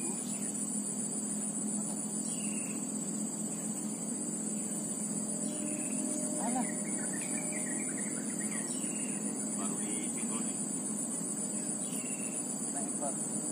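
A steady, high-pitched chorus of insects, with a few short bird chirps scattered through it over a low steady hum.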